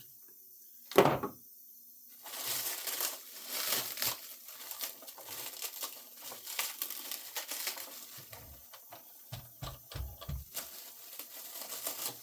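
Packaging crinkling and rustling as a boxed RC car is unpacked. There is a single knock about a second in, and a few low thumps near the end.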